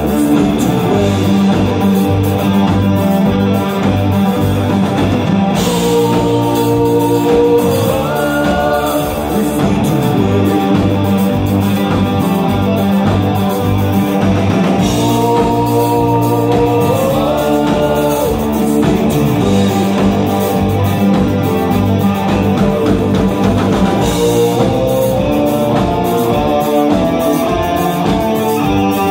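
Live band playing a synth-pop rock song: electric guitar, bass guitar, drums and keyboard, with a man singing the lead.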